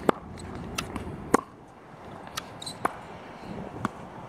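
Tennis rally: sharp pops of a tennis ball struck by racket strings and bouncing on a hard court, about six in all, the loudest one at the start and another just over a second later.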